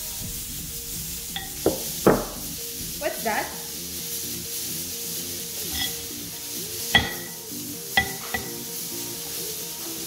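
Metal spoon scraping and clinking against a ceramic mixing bowl as thick cookie dough is stirred, then a few sharp knocks of a small bowl against the pot as chocolate chips are tipped in. Soft background music plays under it.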